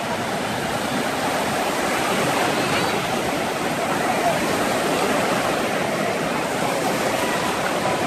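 Small surf breaking and washing over sandy shallows in a steady rush, with faint distant voices of people in the water.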